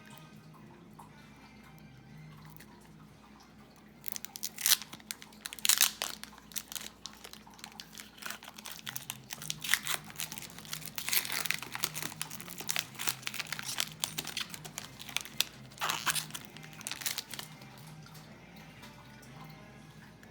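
Plastic trading-card pack wrapper being torn open and crinkled. A dense run of crackling starts about four seconds in and stops a few seconds before the end.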